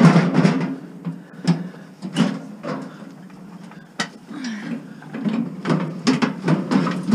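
A metal gas barbecue being shoved and slid into a car's cargo area: irregular clunks and knocks with short scrapes of metal against the car's body and trim. Sharp knocks come right at the start and again about four seconds in.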